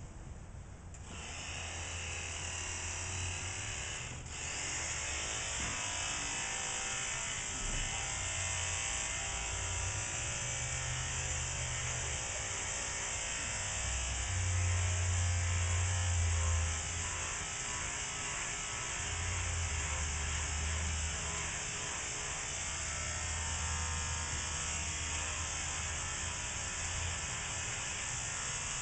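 Electric horse clippers buzzing steadily as they trim the mane hair of a horse's bridle path. The buzz sets in about a second in, with a low hum underneath that comes and goes.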